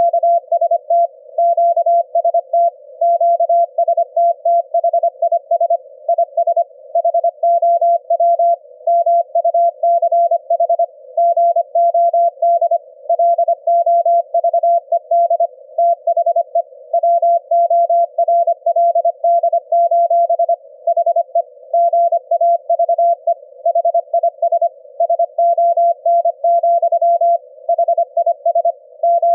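Morse code at about 25 words per minute: a single steady tone keyed rapidly on and off in dots and dashes, with short gaps between characters and words. It is a 25 Hz ELF-band CW signal, demodulated to an audible tone by the Quisk SDR receiver, with a faint narrow hiss of receiver noise under it.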